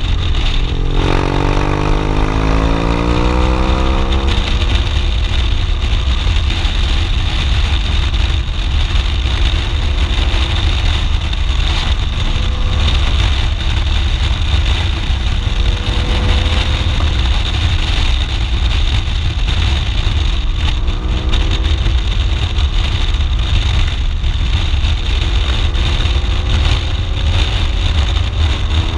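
BMW R 1200 GS Adventure's boxer-twin engine at road speed under heavy wind rush on the microphone. The engine note rises about a second in as the bike accelerates out of a bend, and rises again near the end.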